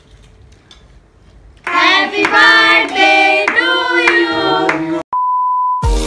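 Several voices singing a birthday song, with hands clapping, starting about two seconds in. The singing cuts off abruptly about five seconds in and is followed by a steady one-tone beep, then music with a heavy beat near the end.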